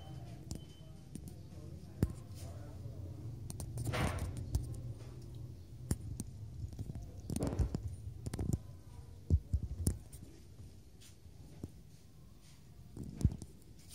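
Handling noise from a homemade brewing hoist: scattered clicks and knocks and a few short rustles as its pulleys, rope and metal pin are touched and moved by hand.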